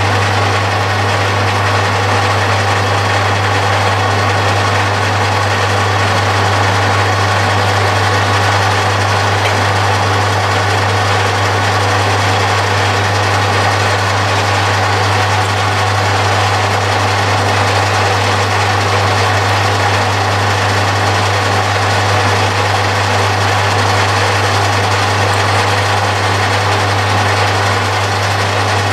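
Metal lathe running steadily with a strong low hum, its tool facing the end of a forged crankshaft supported in a fixed steady.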